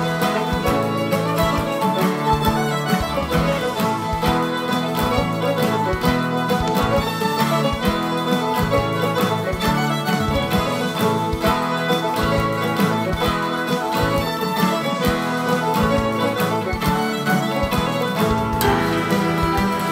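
Fiddle playing a traditional jig at a steady jig rhythm over a guitar accompaniment, moving into the next tune near the end.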